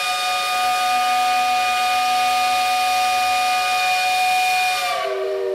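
Steam whistle blowing one long, steady chord over a hiss, then sliding down in pitch as it dies away near the end.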